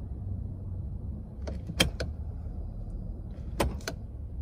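A 4.6-litre V8 idling low and unevenly in gear, a rough idle that the owner cannot explain. Two quick groups of sharp clicks cut in, about a second and a half in and again near the end.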